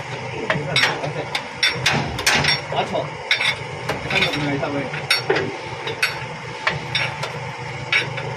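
Hand wrench working the nuts on a lorry's leaf-spring and axle mounting: irregular sharp metallic clicks and clinks of tool on steel, several a second at times, over a steady low hum.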